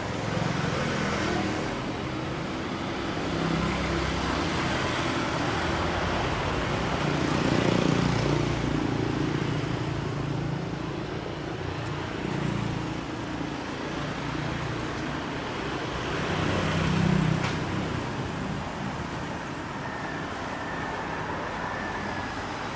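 Street traffic: engines of passing vehicles swelling and fading several times over a steady background of road noise.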